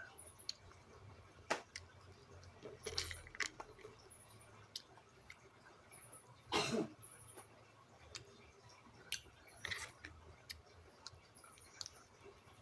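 Close-up chewing of french fries: faint wet mouth sounds with scattered sharp clicks and short crackly bursts, the loudest about six and a half seconds in.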